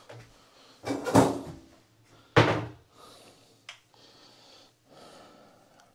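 Rummaging and handling noises: a rustling scrape about a second in, then one sharp knock at about two and a half seconds, followed by a small click and faint shuffling.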